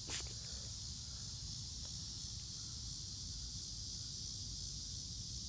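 Steady high-pitched chorus of insects trilling, with a low rumble underneath.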